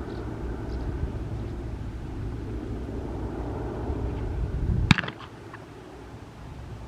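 Distant drone of PZL-130 Orlik turboprop aircraft, a low rumbling haze. About five seconds in there is a sharp click, and the rumble drops off suddenly to a quieter background.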